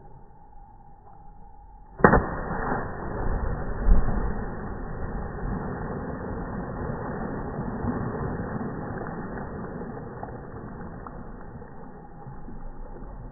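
Slowed-down splash of a person jumping feet-first into a swimming pool. A sudden deep hit about two seconds in is followed by a long, low rush of churning water that slowly fades away.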